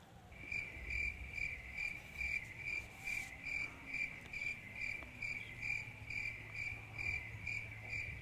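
An insect chirping in an even, steady series of short, high-pitched chirps, about three a second.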